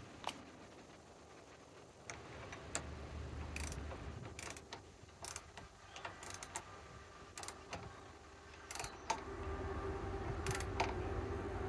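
A ratcheting torque wrench clicking in short, irregular runs of sharp clicks as a bolt is tightened toward 55 foot-pounds. A low hum joins about nine seconds in.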